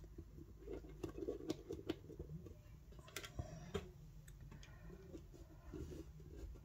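Faint handling noises: scattered small clicks and taps as fingers and a small plastic tool work a lump of Play-Doh and set it down on a wooden tabletop, with light rustling between them.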